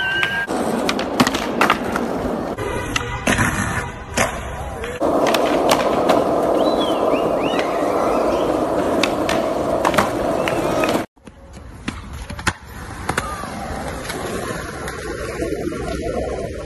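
Skateboard wheels rolling on concrete, with sharp clacks of the board popping, hitting and landing. The rolling is loudest through the middle and cuts off suddenly about eleven seconds in, then quieter rolling follows.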